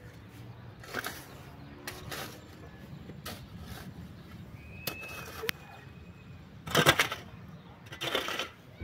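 Metal shovel blade scraping and chopping into dry, stony earth in a series of separate strokes, the loudest about seven seconds in.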